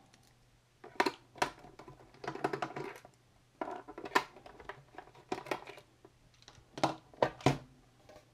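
Irregular clicks and knocks from hands handling the plastic shell of a Commodore C2N datasette as it is unscrewed and pulled apart, coming in short clusters with pauses between them.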